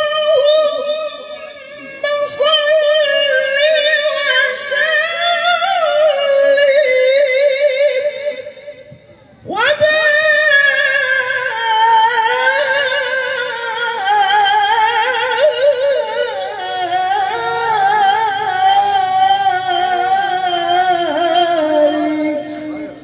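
A woman singing sholawat solo and unaccompanied into a microphone, in long, drawn-out melismatic phrases with wavering ornaments. She breaks off briefly about two seconds in and pauses about nine seconds in before a long final phrase.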